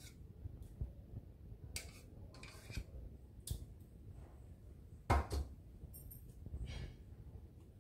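A spoon scraping and tapping against bowls as thick yogurt is spooned out onto chicken in a stainless steel bowl: scattered light clinks and knocks, the loudest a double knock a little past five seconds in.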